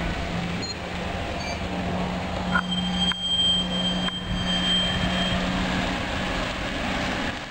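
Škoda 15Tr articulated trolleybus driving by, its electric drive giving a steady low hum. A thin high whine joins in about two and a half seconds in and lasts nearly three seconds.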